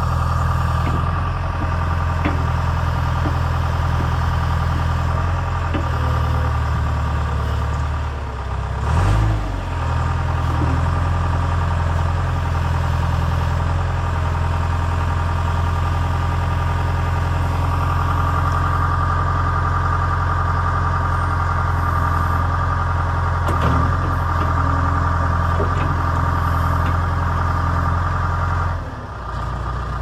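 John Deere 310E backhoe loader's four-cylinder diesel engine running steadily while the backhoe boom and bucket are worked. The engine note dips and surges briefly about nine seconds in, a higher steady tone comes up from about eighteen seconds, and the note dips again just before the end.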